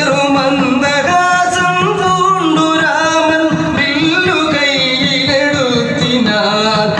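Singing of a Malayalam devotional song, the voice holding long, wavering melodic notes.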